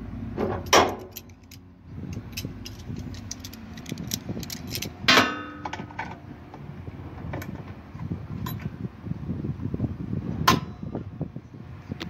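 Steel locking pliers clinking and scraping against each other as a second pair is clamped onto the first to turn a stripped washing-machine agitator bolt, with many small ticks and three sharp metallic clanks, the middle one ringing briefly.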